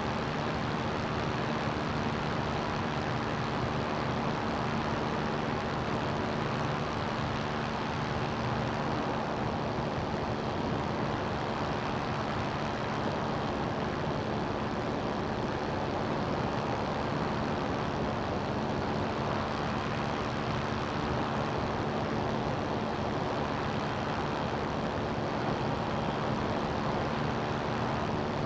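CGS Hawk ultralight's engine and propeller running steadily at cruise in flight, a constant drone under a heavy rush of wind noise.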